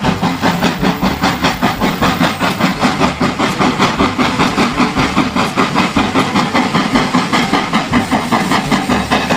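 Steam train chugging: an even, fast rhythm of hissing chuffs, roughly five a second, steady throughout.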